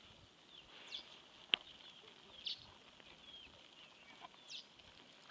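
Faint bird chirps: short high calls about every two seconds over softer twittering. A single sharp click about a second and a half in is the loudest sound.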